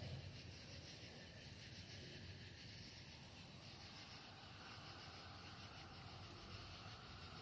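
Near silence: faint, steady outdoor background noise with no distinct sound events.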